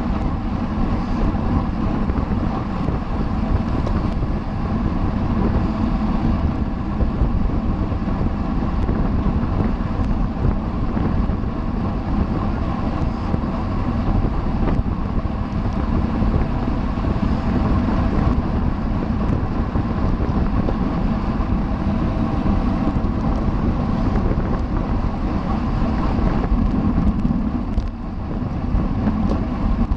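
Steady wind rushing over a camera microphone on a bicycle racing at speed, mixed with tyre and road noise.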